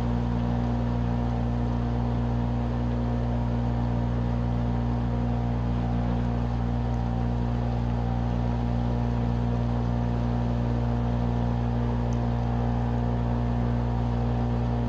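Small motorboat's engine running steadily under way, a constant low drone that does not change in pitch or loudness.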